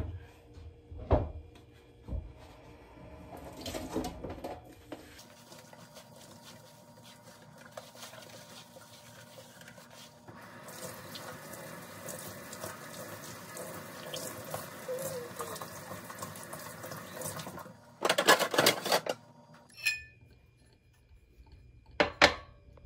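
Kitchen tap running into a stainless steel sink while dishes are rinsed by hand, with a few knocks of dishes before the water starts. A short burst of clattering follows when the water stops, and a glass knocks down once near the end.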